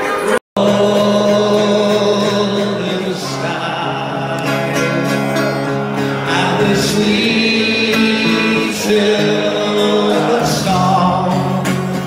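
Music with a large crowd singing along in long held notes. The sound drops out for an instant about half a second in.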